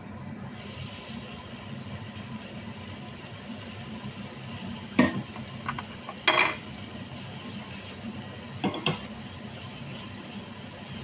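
Tomato sauce sizzling in a frying pan. The hiss comes up about half a second in, as the lid is lifted. Then come a few sharp clanks of lid and utensil against the pan, the loudest about six seconds in, and stirring with a spatula.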